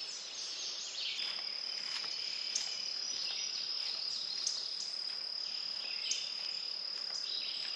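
Insects droning steadily at a high pitch from about a second in, with birds chirping over them and a few brief ticks.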